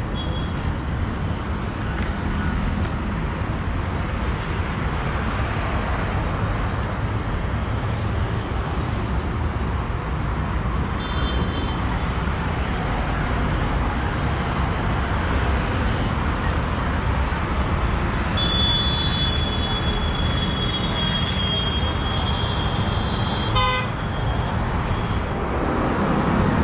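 Steady road traffic noise from cars, scooters and auto-rickshaws on a busy multi-lane road, with vehicle horns honking: a short toot about eleven seconds in and a long held horn for about five seconds from around eighteen seconds in.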